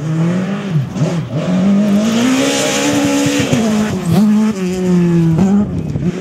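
Rally car engine driven hard, its pitch climbing and then dropping sharply several times through gear changes and lifts off the throttle. A hissing rush rises over it about two seconds in.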